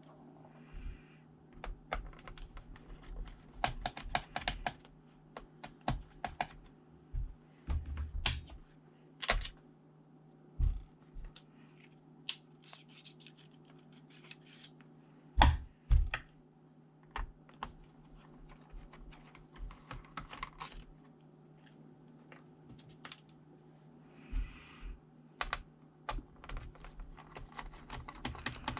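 Irregular clicks, taps and knocks of hands handling a ThinkPad T400 laptop's plastic case and parts, a few louder thuds among them, over a faint steady low hum.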